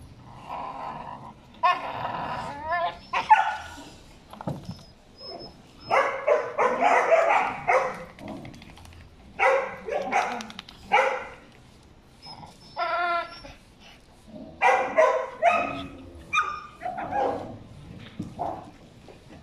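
Several dogs barking in bursts, a few calls at a time, some of them high and wavering.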